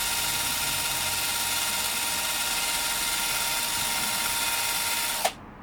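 Electric drill spinning a buffing mop at a steady speed with a steady high whine, stopping about five seconds in as its pitch drops away when the trigger is let go.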